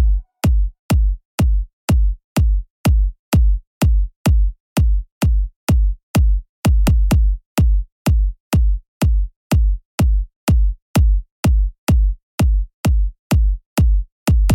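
Background electronic music stripped to a bare drum-machine beat: a steady kick drum at about two to three beats a second, with no melody.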